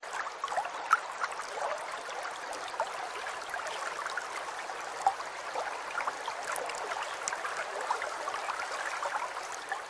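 Steady running water, like a small stream, with many quick little bubbling notes.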